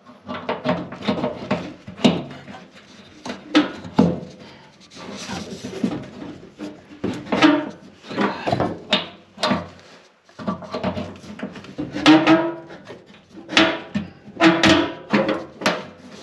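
Hand work on a fuel-line quick-connect at a fuel tank sending unit: irregular scraping, rubbing, clicks and knocks as the return line is pushed onto its fitting until it clips on.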